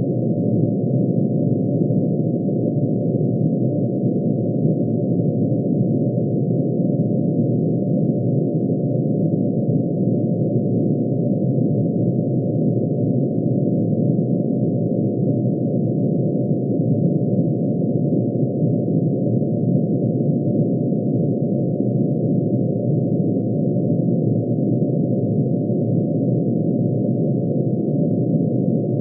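Synthesized drone of many sine tones added together, the atomic emission spectrum of mercury shifted down into hearing range. It sounds as a steady, dense hum of closely packed tones between low and middle pitch, unchanging throughout.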